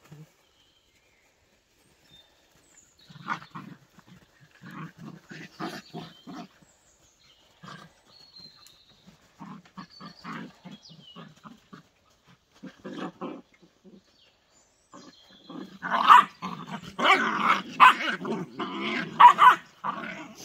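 Whippet puppies play-fighting, growling in short bouts that start a few seconds in and come and go. Near the end the growls and barks grow louder and more continuous.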